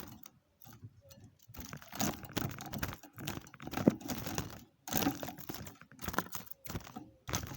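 Close-up rustling and crinkling in bursts, packed with rapid clicks.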